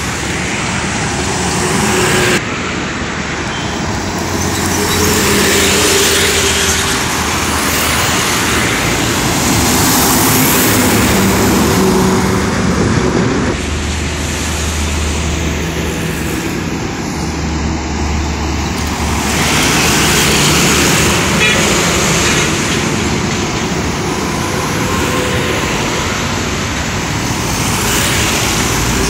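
Heavy highway traffic passing close by: lorries and cars, a continuous mix of diesel engine rumble and tyre noise.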